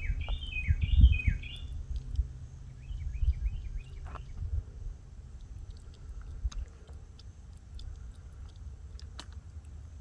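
A bird calling a quick run of four repeated chirps in the first two seconds, then a fainter run of chirps about three seconds in, over a low rumble and scattered small clicks.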